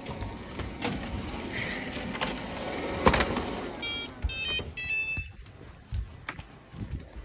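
Robot vacuums running with a steady whirr, a knock about three seconds in, then a quick series of electronic beep tones from a robot vacuum being stopped, after which the running noise drops away.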